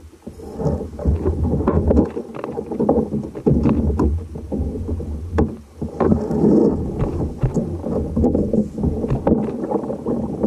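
Sea water sloshing and slapping against a kayak hull, with irregular splashes, over a low rumble of wind on the microphone.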